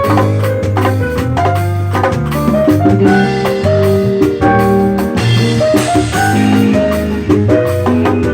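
A live band jamming an instrumental groove: drum kit and hand percussion over a bass line, with keyboard and guitar playing melodic lines.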